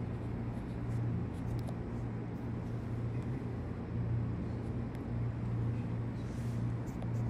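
Steady low hum with a few faint clicks.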